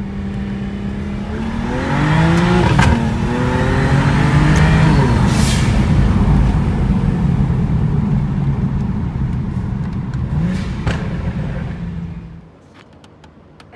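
BMW 335i's turbocharged inline-six engine under acceleration, heard from inside the cabin: it revs up about two seconds in, drops back at a gear change and pulls again, then eases off and fades near the end.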